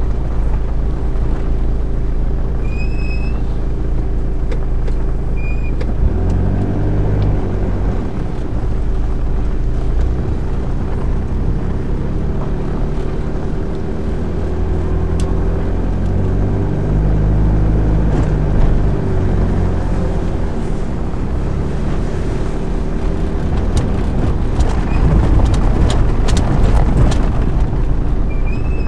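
Car engine and tyre noise heard from inside the cabin while driving slowly on an unpaved surface; the engine's pitch rises and falls about six seconds in and again from about sixteen to twenty seconds. A cluster of sharp rattling clicks comes near the end.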